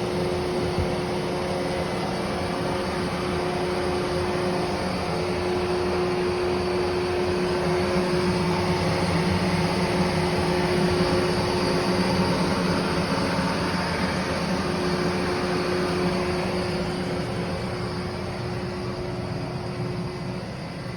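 Large Lansing engine lathe running under power: a steady mechanical hum with a constant tone over it, easing off a little near the end.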